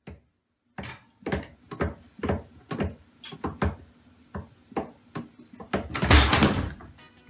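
Irregular knocks and thuds from inside a wooden kitchen cabinet as a toddler crawls about among pots and lids, about two or three a second, with a louder, longer clatter about six seconds in.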